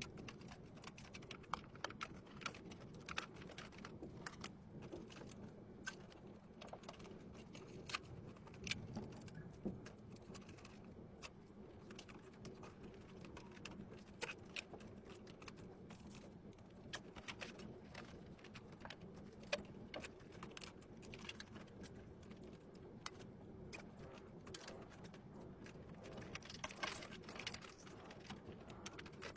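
Typing on a computer keyboard: irregular, faint key clicks, a few a second, over a low steady hum.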